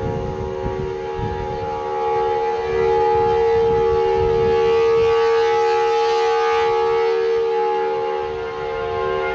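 Outdoor civil defense siren wailing a tornado warning with a steady tone. It swells louder a couple of seconds in and eases off again near the end.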